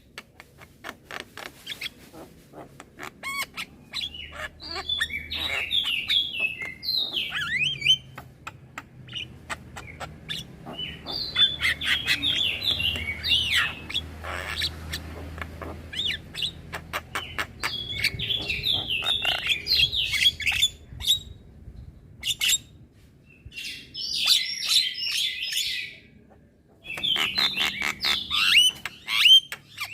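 Young Javan myna chattering without pause: bursts of rapid harsh, scratchy notes and clicks, each a second or two long, with short breaks between.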